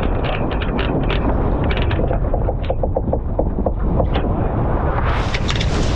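Strong wind buffeting the microphone of a sailboat under way in a heavy breeze, with rushing water and scattered knocks. About two seconds in comes a short run of rapid, evenly spaced clicks, about six a second.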